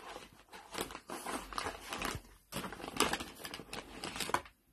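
Plastic-wrapped toys and snack packets crinkling and rustling against a cardboard box as a dog roots through it with its nose, in irregular crackles that stop shortly before the end.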